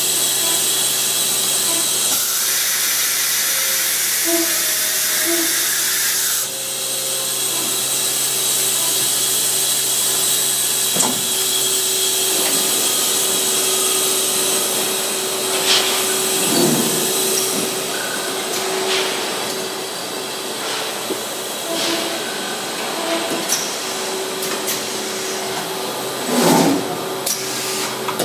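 Deckel Maho DMC 165V vertical machining center running: a steady mechanical hum and hiss with a held tone, a louder rush for a few seconds near the start, and a few short knocks and clunks later.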